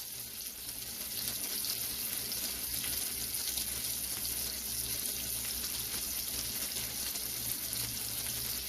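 Tuna steaks sizzling on a George Foreman contact grill: a steady frying hiss.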